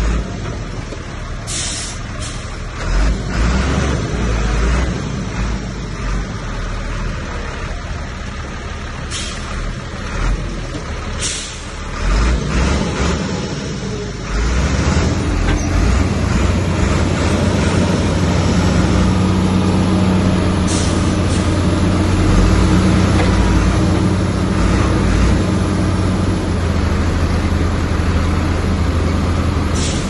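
Heavy diesel earthmoving machinery working, the engine running hard throughout. The first half is rough, with a few short, sharp noises. From about halfway it settles into a louder, steady engine drone, as under load.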